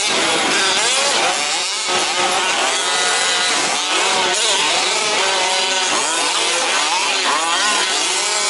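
Several 1/5-scale two-stroke petrol RC truck engines racing together, their overlapping buzzing pitches rising and falling as each one revs and backs off.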